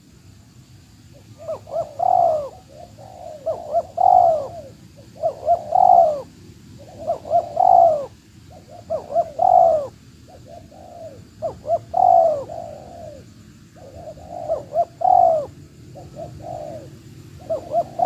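Spotted dove (tekukur) cooing: a long run of short multi-note cooing phrases, one every second or two.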